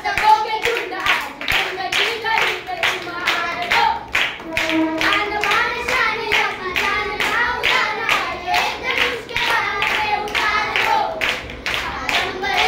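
Two boys singing a song together in high children's voices, with steady rhythmic hand-clapping keeping time.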